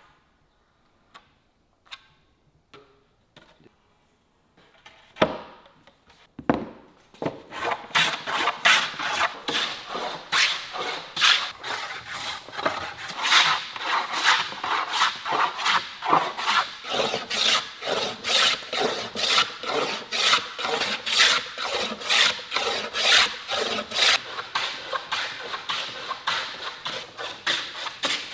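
A hand tool working wood: a few light knocks, then from about seven seconds in a steady back-and-forth of rasping strokes, about two a second, like sawing, filing or sanding.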